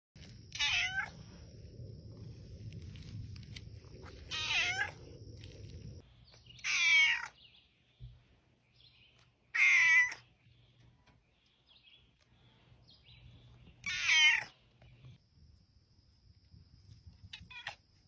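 Black-and-white domestic cat meowing: six separate meows a few seconds apart, the last one fainter.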